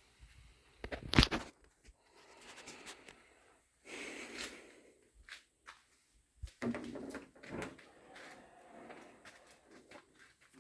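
A sharp knock about a second in, followed by scattered rubbing, scraping and clunking sounds of objects being handled in a small room.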